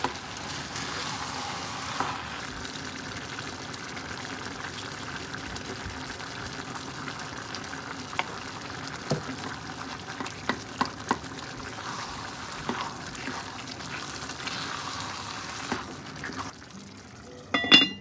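Meat and tomato sauce sizzling in a Staub cast-iron braiser as a spatula stirs it, tapping against the pot now and then. Near the end the sizzling drops away and the heavy cast-iron lid clanks down onto the pot with a short ringing clatter.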